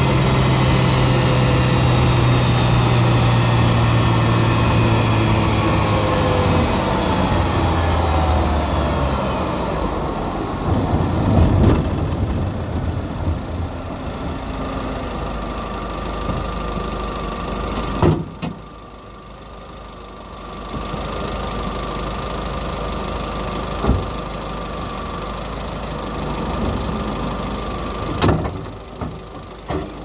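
Intake sound of a Chevrolet Corsa 1.4 four-cylinder engine breathing through an open cone air filter. The engine speed sinks slowly over the first several seconds, then settles into a steady idle. Several sharp clicks stand out in the second half.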